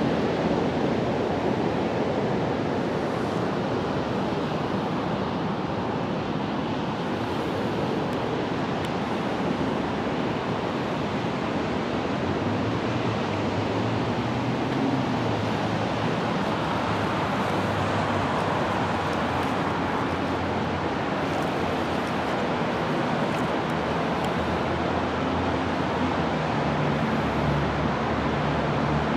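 Steady rushing noise of wind on the microphone, with a faint low hum joining about halfway through.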